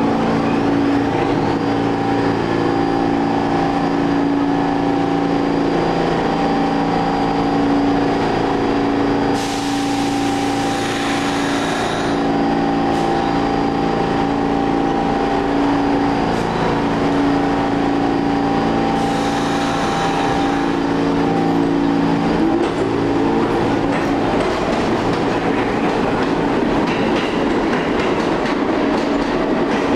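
Pullman-Standard R46 subway train standing at the platform with a steady multi-tone hum, broken by two short bursts of air hiss. About three-quarters of the way in it pulls away: a rising motor whine, then growing wheel-on-rail rolling noise as it gathers speed.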